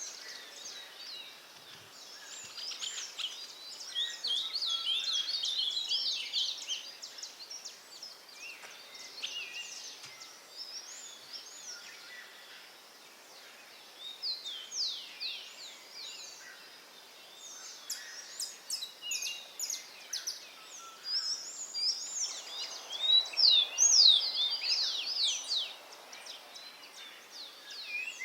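Songbirds chirping and singing, many quick high notes in busy flurries with quieter gaps between, loudest near the end.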